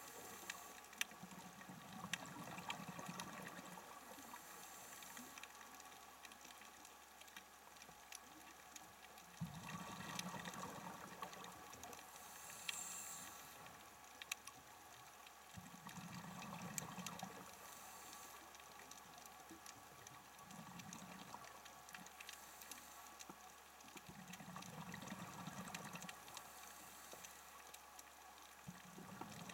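Underwater scuba breathing through a regulator: faint bursts of exhaled bubbles rumbling about every five to seven seconds, with scattered sharp clicks between them.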